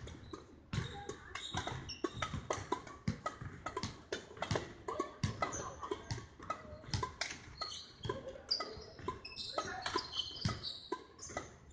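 Badminton rally sounds on a wooden sports-hall floor: many sharp racket hits on the shuttlecock and footfalls in quick succession, with short high-pitched shoe squeaks, most of them about two-thirds of the way through.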